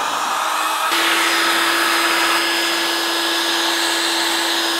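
Electric heat gun blowing steadily: a fan hiss with a steady motor hum, growing stronger about a second in. It is heating a Husqvarna 576 XP chainsaw crankcase half to loosen the crankshaft main bearing for removal.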